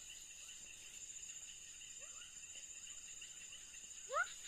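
Night insects, crickets among them, trilling steadily in a high continuous tone with a slower pulsing chirr under it. Short rising calls from an animal come through twice, the louder one near the end.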